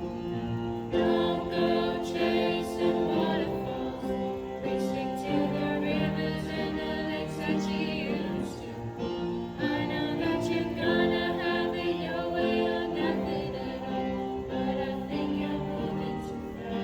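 Music: a song with singing voices over instrumental backing.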